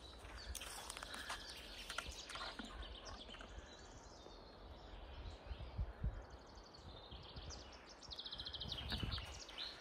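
Songbirds singing faintly in a spring forest, with footsteps on the forest floor. About eight seconds in, a bird gives a quick trill of short high notes.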